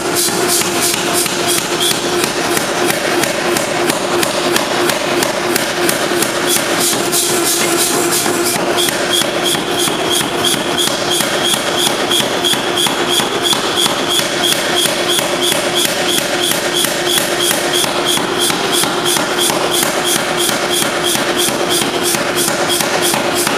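Nazel 3B air power hammer running continuously, its dies striking a hot stainless steel bar in rapid, even blows over a steady hum. Through much of the middle a high squeak pulses with each stroke, which the owner believes comes from the valve timing being set slightly off, so that the hammer acts like a whistle.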